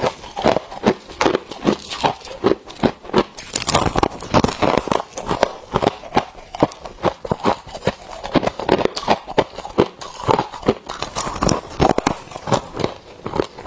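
Freezer frost crunching as it is bitten off a slab and chewed: a rapid, uneven run of crisp crunches, several a second.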